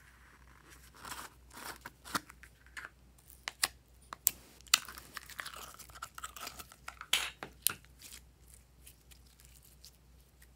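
Glossy slime being pulled out of its plastic tub and stretched by hand, giving scattered sticky clicks, pops and crackles.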